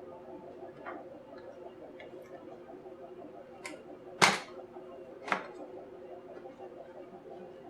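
A few sharp clicks and knocks of tools and small hard parts being handled during disassembly. The loudest comes a little past the middle and another follows about a second later, over a steady low hum.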